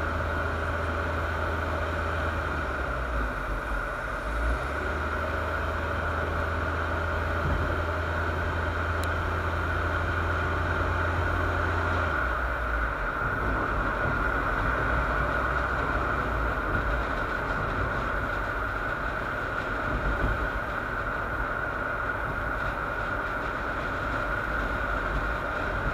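Steady, muffled road and engine noise of a car driving, picked up through a sealed waterproof action-camera case mounted on the front bumper. A low hum underneath stops about halfway through.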